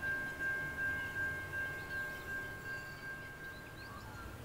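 Level crossing warning bell ringing in a steady, rapid pulse of a single high tone, fading out about three and a half seconds in, with faint birdsong.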